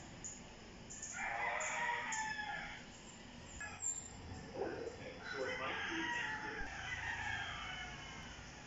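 Rooster crowing twice: once about a second in, and again, longer, from about the middle to near the end.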